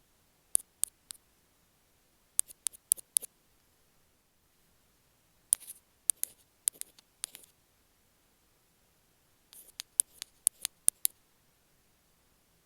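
Bamboo ear pick clicking against an earphone microphone: sharp, close clicks in four short clusters of three to six, with quiet pauses between.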